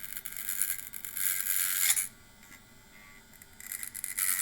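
High-pitched scraping, twice: the first lasting about two seconds and ending with a brief falling whine, the second starting near the end.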